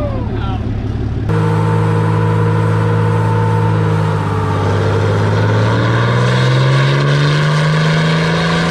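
Diesel pickup engine pulling hard on a chassis dyno, its pitch climbing slowly and steadily as the revs rise under load. The engine sound cuts in sharply about a second in.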